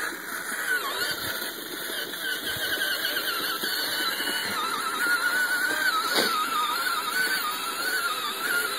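Small electric drive motor and gearbox of a child's battery-powered ride-on quad whining as it drives, the pitch wavering up and down with the load. A short click about six seconds in.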